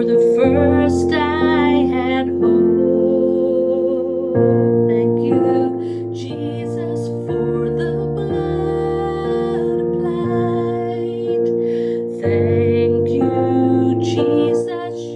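A woman singing a slow worship song with vibrato over sustained keyboard chords, with short instrumental stretches between sung lines.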